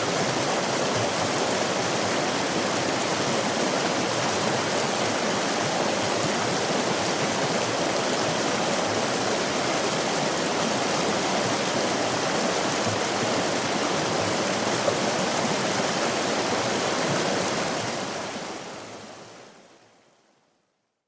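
Stream water rushing and splashing steadily over rocks, then fading out to silence near the end.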